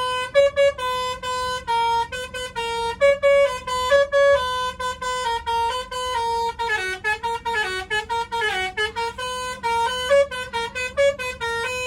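Telolet bus horn playing a fast tune of short, stepped horn notes, with a stretch of bending, wavering notes about six to nine seconds in.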